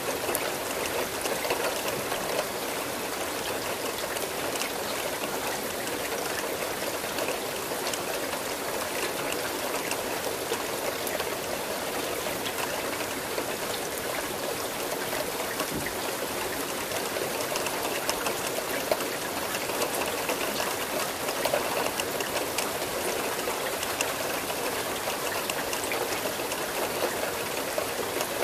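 Steady rain falling, with scattered drops tapping and a trickle of running water.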